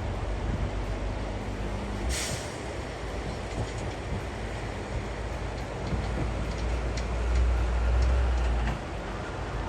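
Train passing: a continuous low rumble that swells to its loudest late on, with a short hiss about two seconds in.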